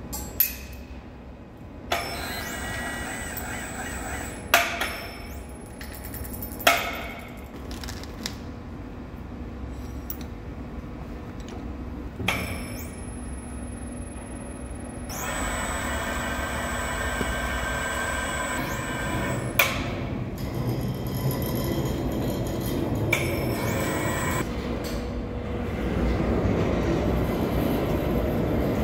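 Heavy steel parts being handled in a machine shop: several sharp metal clanks that ring out, between stretches of steady mechanical running, as the big haul-truck suspension strut is taken out of the lathe.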